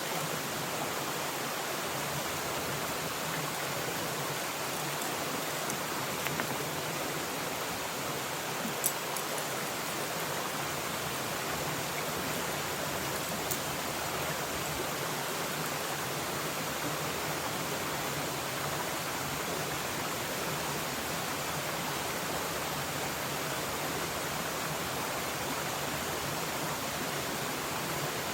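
Steady rushing of a mountain stream, with a few brief clicks.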